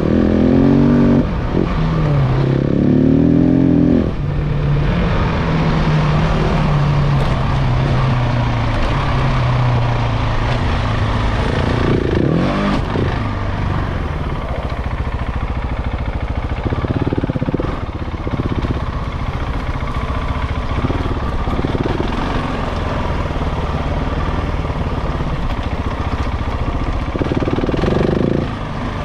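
KTM 690 Enduro's single-cylinder engine under way. For the first few seconds it revs hard, its pitch climbing and dropping as the throttle works. It then runs at lower, steadier revs, with short throttle rises now and then.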